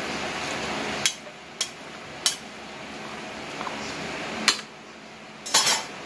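Metal spatula and spoon tossing pancit noodles in a metal wok, scraping through the noodles and clinking sharply against the pan about five times, with a quick cluster of clinks near the end.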